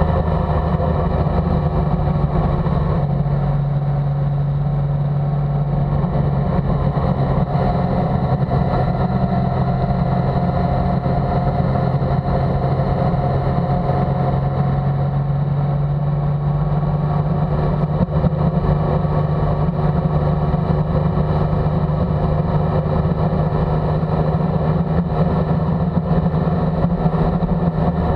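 Motorcycle engine running steadily at cruising speed, with wind and road noise, heard from the bike carrying the camera.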